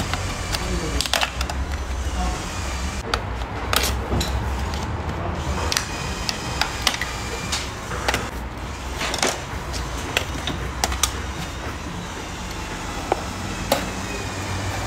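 Scattered sharp clicks and knocks of tools and metal exhaust parts being handled during disassembly, over a low background hum.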